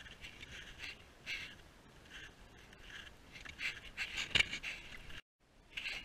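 Snowshoe steps crunching on packed snow, one step about every half second to second, with one sharper knock about four seconds in and a brief cut to silence near the end.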